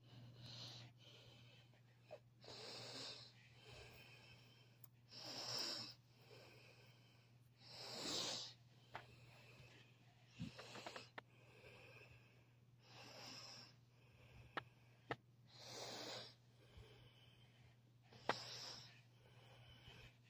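Quiet breathing close to the microphone, one breath about every two and a half seconds, with a few faint clicks and a low steady hum underneath.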